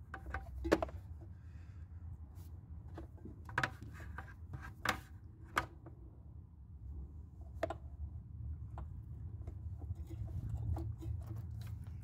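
Scattered small clicks and knocks of hands and pliers working a rubber fuel hose and its clamp onto a motorcycle's fuel line, over a low steady rumble.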